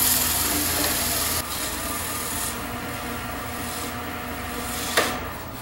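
Cloth rag rubbing Mylands friction polish onto a cocobolo piece spinning on a wood lathe, a rasping rub strongest for the first second and a half, then softer, over the lathe's steady hum. A sharp click comes about five seconds in.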